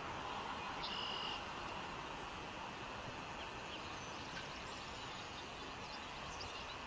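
Steady hiss of background noise with a single short electronic beep about a second in, and a few faint high chirps later.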